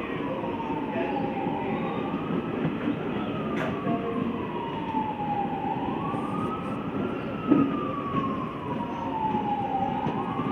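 A siren wailing in slow rising and falling sweeps, about one every four seconds, over the steady rumble of a train. A single sharp knock comes about seven and a half seconds in.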